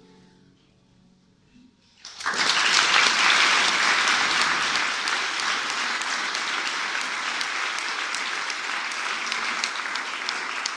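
The last notes of a grand piano fade away, then about two seconds in an audience breaks into applause that carries on, easing slightly toward the end.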